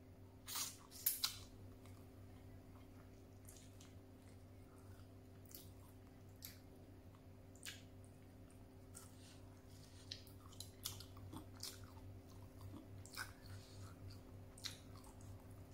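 Close-up mouth sounds of a person chewing rice and fish eaten by hand: soft wet chewing with irregular lip smacks and clicks, a louder cluster of them about a second in. A faint steady hum sits underneath.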